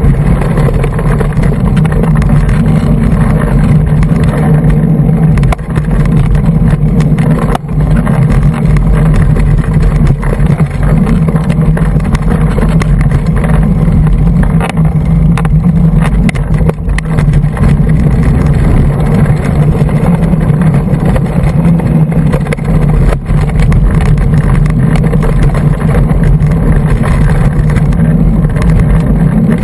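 Loud, steady wind buffeting and rumble on a bike-mounted GoPro Hero2, with the clatter and knocks of a hardtail mountain bike rattling over rough singletrack scattered throughout.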